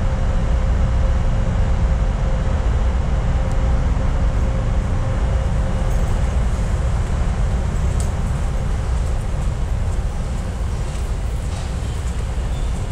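Subway train rumbling low and steady, slowly fading, with a faint hum that drops away about halfway through and a few light clicks in the second half.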